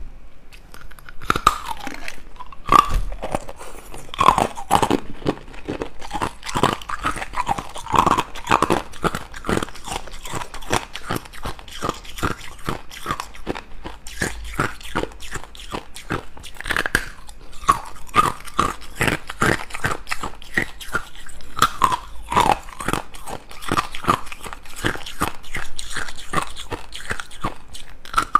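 Hard ice cubes bitten and crunched between the teeth, close-miked: a rapid, continuous run of sharp cracks and crunches starting about a second in.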